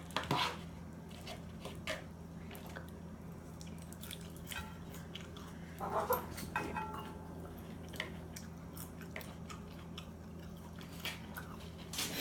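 Close-up chewing of salad, with scattered crunches. A brief pitched cry about six seconds in, from the cat as it dashes off.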